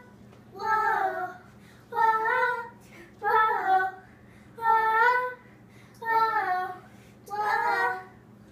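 A child singing a short phrase over and over in a steady rhythm, about six times, each line under a second with brief pauses between, with no accompaniment.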